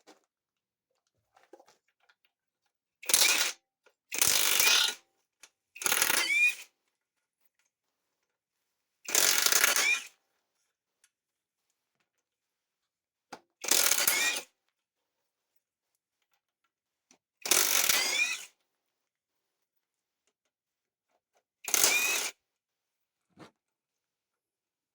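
A ratchet wrench with a 9/16 socket backing out the bolts of a TH400 transmission's extension housing, heard as about seven short bursts of ratcheting several seconds apart.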